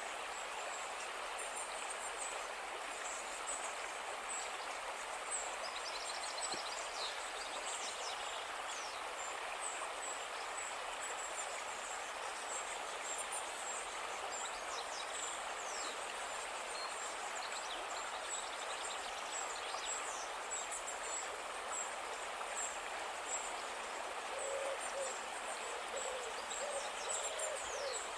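River water flowing steadily with a constant rushing hiss, and thin high chirps from birds or insects above it. Near the end comes a run of low hooting calls in quick succession.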